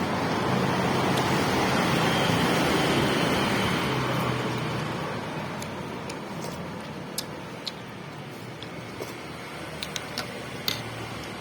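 A road vehicle passing by, its noise swelling over the first few seconds and then fading away. A few faint sharp clicks follow near the end.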